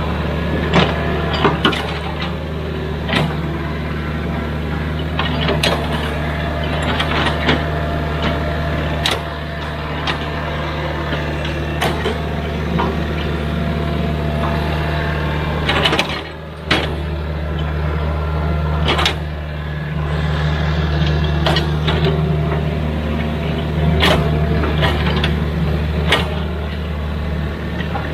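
Excavator working: its diesel engine runs steadily, with frequent sharp knocks and clanks. The engine drops off briefly about two-thirds of the way through.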